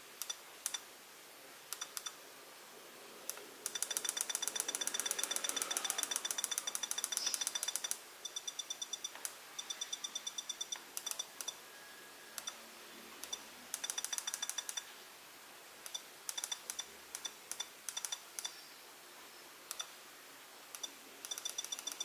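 Radio control transmitter beeping at each button press while throttle curve values are stepped: scattered single short beeps, and rapid runs of beeps while a button is held, from about four to eight seconds in and again near the end.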